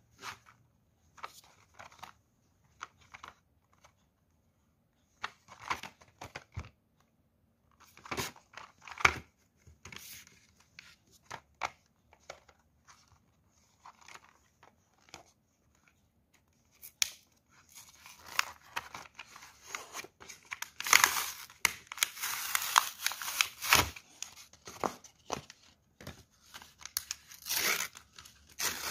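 A plastic blister pack with a cardboard backing is handled, with scattered short rustles and clicks. About two-thirds of the way through, the cardboard backing is torn open and the plastic crinkles in a dense, louder run of tearing and rustling.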